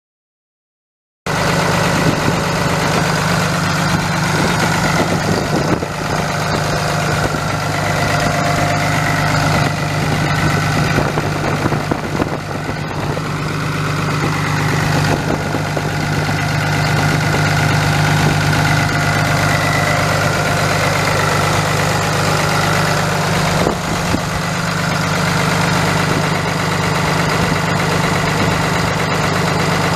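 Ram 5500's 6.7-litre inline-six turbo diesel idling steadily, with a light diesel clatter. Its emissions equipment has been deleted and a muffler fitted in its place. The sound cuts in abruptly about a second in.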